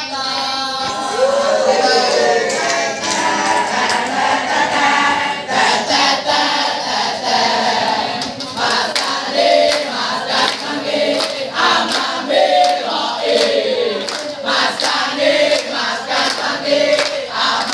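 A crowd of teenage boys chanting and singing a yel-yel group cheer together, with hand claps joining in.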